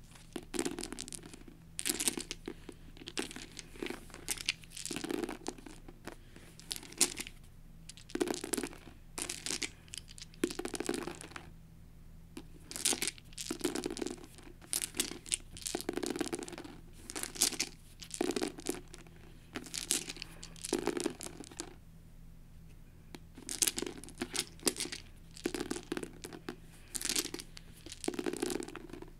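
Eight small translucent plastic six-sided dice clattering as they are scooped up, rattled in the hand and tumbled onto a paperback book cover, over and over. Short bursts of clicking come about once a second, with a pause about twelve seconds in and another about twenty-two seconds in.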